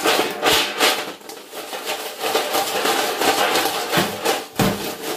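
Crisp fried breadfruit chips tossed in a stainless steel bowl: a continuous dry rattling and clattering of the chips against each other and the metal, with a few louder knocks.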